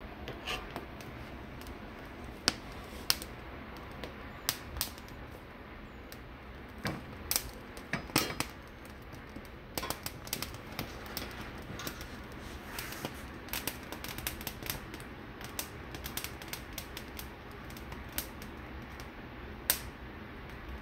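Metal tongs clicking and ticking against gas-stove grates while charred poblano peppers are turned over the burner flames. The clicks are sharp and come at irregular times, a few loud ones standing out, over a steady low background noise.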